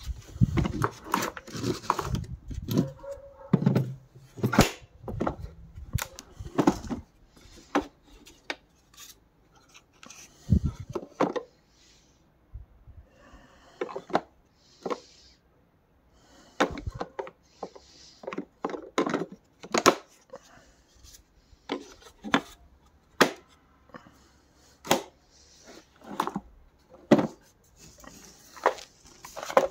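Samsung vacuum cleaner being handled with the motor off: scattered plastic clicks and knocks, with some rubbing in between.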